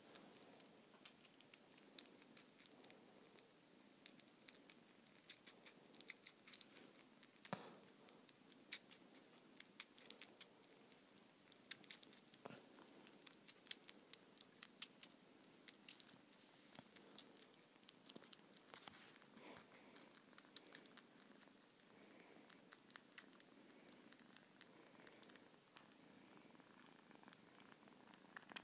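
A kitten purring softly while nursing, with scattered small clicks throughout.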